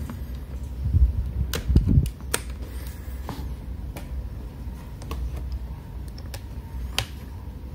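Scattered sharp clicks and a few dull knocks of a laptop charger cable being handled and plugged into the laptop's side port, over a steady low hum.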